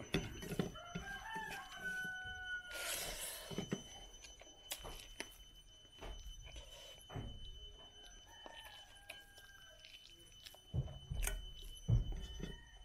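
A rooster crowing twice: a longer crow in the first few seconds and a fainter one past the middle. A few soft knocks come near the end.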